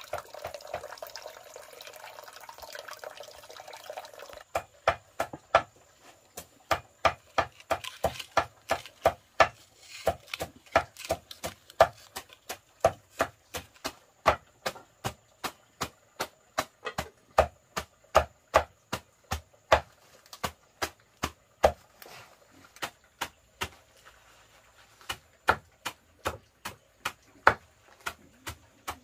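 Water running for about four seconds, then stopping. Then a knife chopping food on a cutting board in a steady run of sharp strokes, about two to three a second, with a few short pauses.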